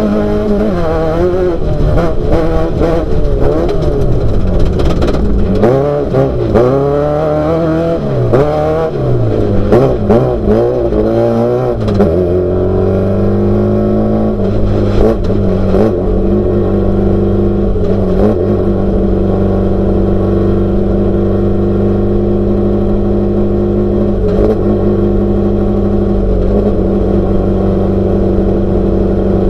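Off-road race car engine revving hard and rising and falling in pitch with the throttle and gear changes, with sharp knocks and rattles, for about the first twelve seconds. It then holds a steady, even pitch at constant speed.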